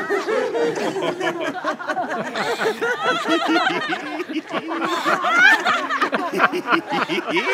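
A group of people laughing together, many voices overlapping in continuous, ritual laughter, a little louder in the second half.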